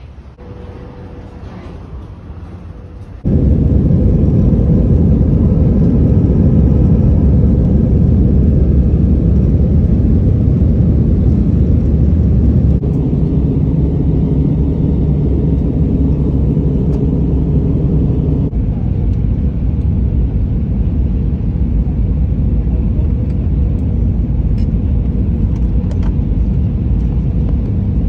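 Jet airliner cabin noise from a window seat over the wing, an Airbus A320-family jet: a loud, steady low rumble of engines and airflow. It starts suddenly about three seconds in after a quieter terminal ambience, and eases slightly twice later on.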